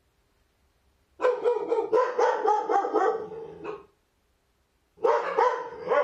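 A large dog barking in a rapid, continuous string for nearly three seconds, then a second shorter burst of barks about a second later.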